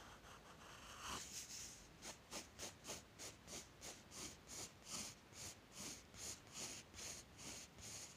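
Graphite pencil scratching on sketchbook paper in quick back-and-forth shading strokes, about two to three a second, starting about a second in. Faint and even.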